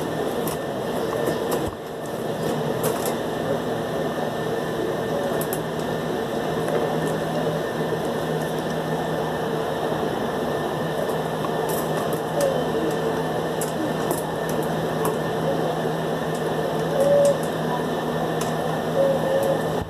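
Dog growling in play while mouthing a hand through the bars of a wire crate, with scattered light clicks against the bars and a few short whiny squeaks near the end, over a steady hum.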